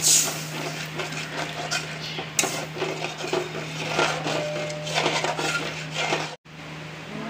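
Steel spoon scraping and clinking against an aluminium kadai as a ground spice paste is stirred into hot oil, with irregular knocks throughout. The sound cuts out abruptly for a moment about six seconds in.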